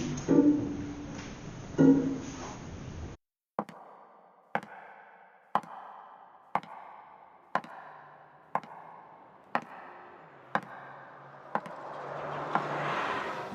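Improvised experimental music: a few plucked notes for about three seconds, then an abrupt cut to a regular tick about once a second over a faint low drone, with a noisy swell building near the end.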